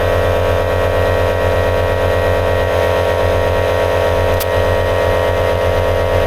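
A motor running with a steady, unchanging hum. A single sharp click comes about four and a half seconds in.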